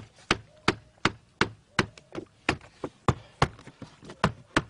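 A hammer striking a wooden block to drive the wooden ribs into a birch-bark canoe hull. It makes a steady run of sharp wooden knocks, about three a second.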